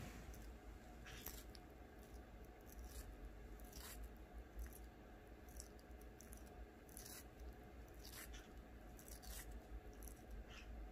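Blue-tongued skink chewing a piece of apple, with faint, irregular crunches.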